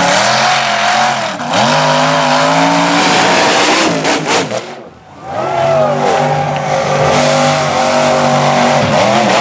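Mega mud truck engine revving hard at high rpm as the truck charges and launches into a water-filled pit. The engine pitch swings up and down, the sound falls away sharply about five seconds in, then comes back at a steady high rev.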